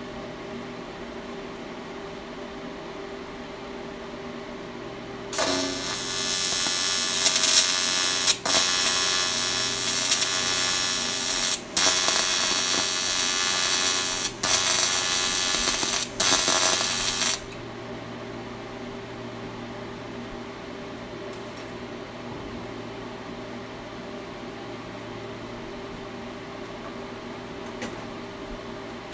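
TIG welding arc on aluminum, fed with filler wire, running loud and crackly for about twelve seconds and breaking off briefly four times. Before and after the arc, the AlphaTIG welder hums steadily at idle.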